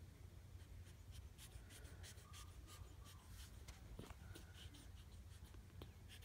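Near silence with faint, scratchy rustling and small clicks of puppies shifting on a fabric blanket.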